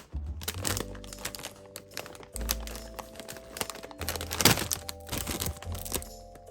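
Plastic chip bag crinkling and crackling as it is handled, with sharp clicks and crunches from the chips, over light background music.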